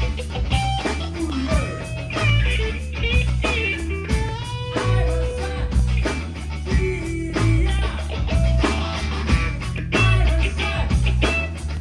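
Rock band playing an instrumental passage: an electric guitar lead with bent and sliding notes over bass guitar and drums.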